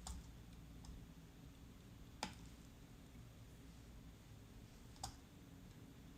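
A few short, sharp clicks in a quiet room, about three, the loudest a little over two seconds in, over a low steady hum.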